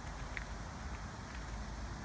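Quiet steady background noise with a low hum, and one faint tick a little under half a second in.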